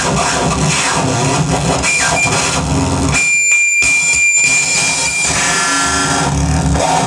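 Live electronic noise music played on floor-laid effects gear: a loud, dense wash of noise over a pulsing low rumble. About three seconds in, the low end drops away and leaves a steady high whine for about two seconds, then the rumble comes back.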